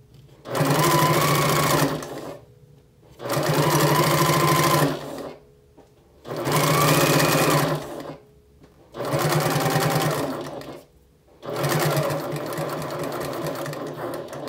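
Electric sewing machine stitching down a folded cork strap in short runs of about two seconds, stopping briefly between them, five runs in all. The last run starts about twelve seconds in and is a little quieter.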